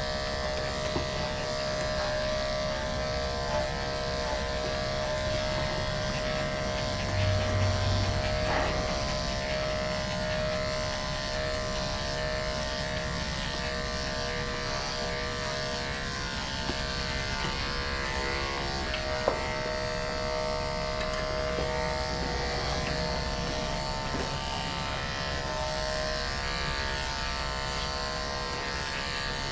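Electric dog grooming clippers fitted with a guard comb, running with a steady buzz while trimming a dog's face.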